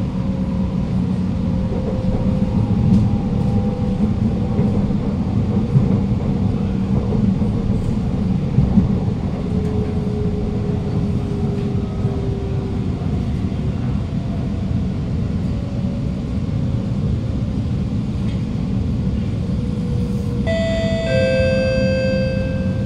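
Alstom Movia R151 metro car running, heard from inside the carriage: a steady rumble of wheels on rail with a low hum and faint motor tones gliding in pitch. Near the end, an onboard electronic chime sounds.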